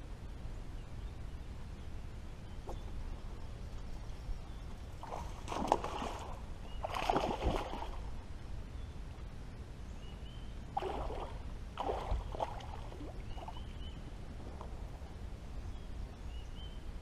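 A hooked bass splashing at the surface as it is reeled to the boat, in two bouts: the loudest about five to eight seconds in, a shorter one around eleven to twelve seconds.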